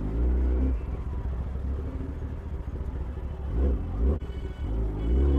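Kawasaki ZX-10R's inline-four engine running under the rider at low speed, with three short throttle blips that rise in pitch: at the start, about three and a half seconds in, and near the end.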